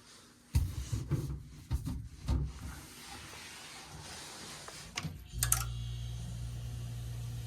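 Clicks and handling noises on the furnace while a replacement low-voltage fuse goes in. About five seconds in, sharp relay clicks are followed by a steady low electrical hum as the heating and cooling system starts running again, the blown fuse having been the reason nothing ran.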